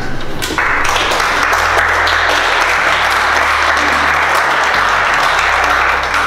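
Audience applauding, starting about half a second in and keeping up steadily, with background music of low held notes underneath.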